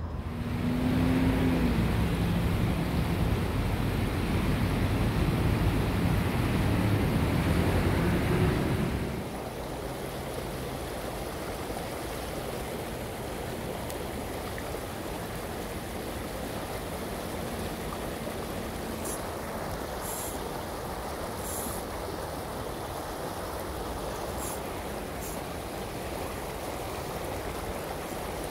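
Fast, shallow creek water rushing over rocks in a steady wash. For roughly the first nine seconds a louder low rumble sits over it.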